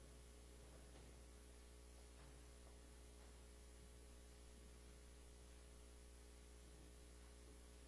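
Near silence: a steady low electrical hum, like mains hum.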